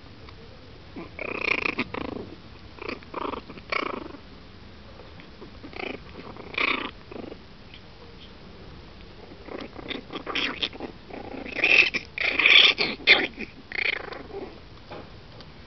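Chihuahua puppies play-growling in short bursts as they wrestle, with the busiest run of growls from about ten seconds in.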